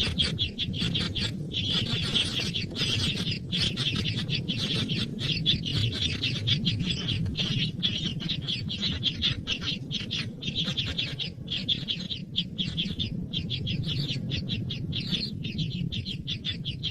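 Baby birds chirping continuously in rapid, high, short calls, over a steady low background noise.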